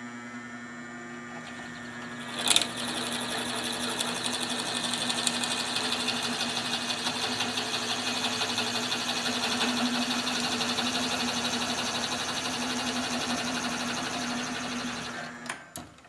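Drill press running with a homemade tapered bit, ground from a flat spade bit, boring a hole to depth in a square wooden block. The motor hums steadily at first. About two and a half seconds in, a click marks the bit biting into the wood, and the louder sound of cutting follows. The press stops near the end.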